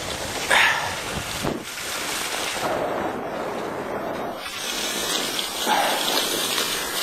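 Wind buffeting the microphone with a low rumble and a couple of short louder gusts. About four and a half seconds in the rumble drops away, leaving a steady hiss.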